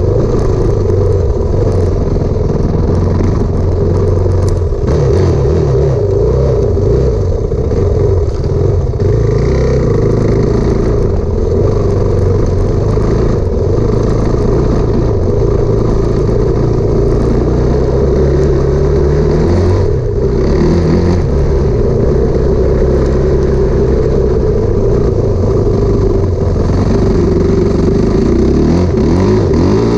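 Enduro motorcycle engine running hard under way, its pitch rising and falling with the throttle, with marked changes in revs about two-thirds of the way through and again near the end.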